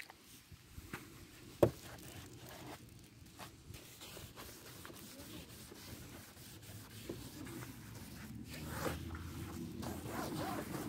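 Faint rubbing and scraping with scattered small clicks, one sharp click about a second and a half in, growing a little louder near the end.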